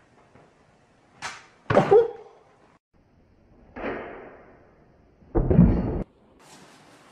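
Thumps and swishes as a kitten leaps from a dresser at the wall and comes down: four sudden sounds, the loudest about two seconds in and a heavy thud about five and a half seconds in.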